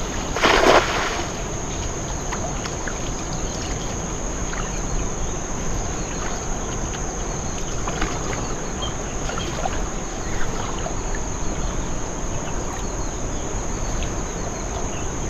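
Cast net landing on the river with a splash about half a second in, the loudest sound here; then a few faint splashes and drips as the net is drawn back in by its rope, over a steady outdoor hiss with a constant high drone.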